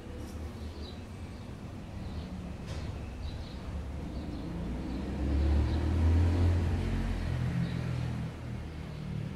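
A motor vehicle passing by: a low engine rumble that grows to its loudest about six seconds in and then fades.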